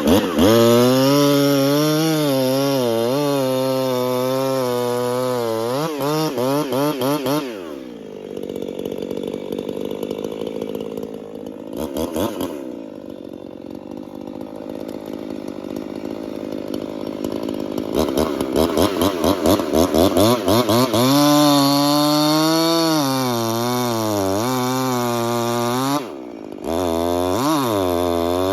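Two-stroke Husqvarna 345 chainsaw with a dual-port muffler running at high revs. The pitch dips and recovers again and again, as under cutting load. About seven seconds in it drops to a lower, quieter idle for roughly ten seconds, then returns to high revs with a brief dip near the end.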